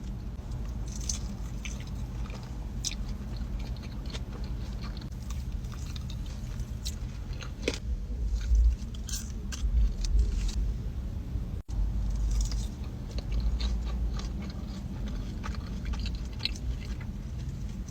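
Close-miked chewing and biting of food, with scattered crisp clicks and smacks. The sound drops out for an instant about two-thirds of the way through.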